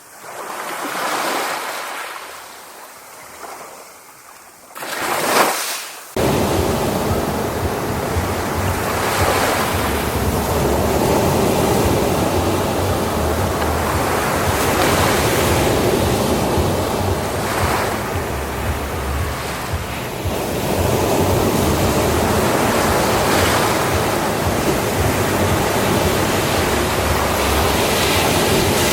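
Sea waves breaking on a beach: two separate waves wash in and fall back in the first few seconds, then about six seconds in the sound switches abruptly to a louder, continuous surf with a low rumble underneath.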